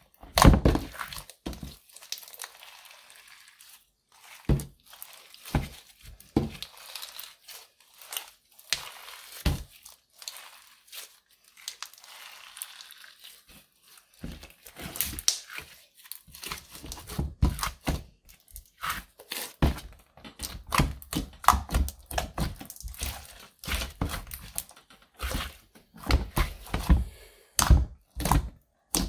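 Hands squishing, stretching and folding clear slime thick with crushed eyeshadow, with irregular wet clicks, pops and crackles. The first dozen seconds are mostly softer crackling as the slime is stretched; after that the squishing gets dense and loud.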